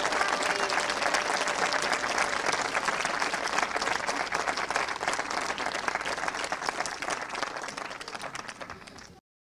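Audience applauding, a dense patter of many hands clapping that thins and fades over the last two seconds and then cuts off suddenly.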